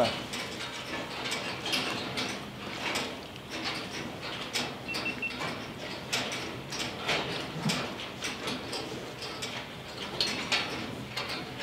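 Scattered light mechanical clicks and ticks, irregularly spaced, from handling of a scoped air rifle while it is held aimed.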